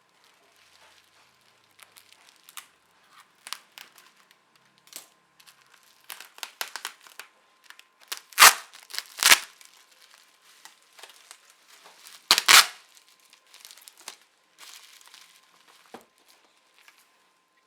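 Shipping packaging being torn open by hand: scattered crinkling and crackling of wrapping, with three loud sharp rips, two close together about eight seconds in and one about four seconds later.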